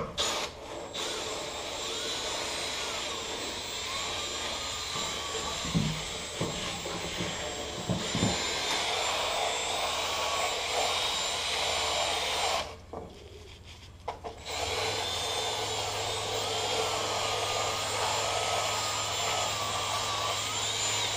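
Milwaukee brushless cordless drill spinning a drill brush that scrubs a plastic truck bed rail cap. The motor whine wavers in pitch as the trigger speed changes, with a few knocks early on. It stops for about two seconds partway through, then starts again.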